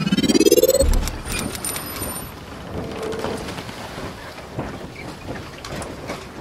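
Logo intro sound effect: a rising pitched sweep that ends in a deep thud about a second in, then a hissing, crackling noise tail that slowly fades.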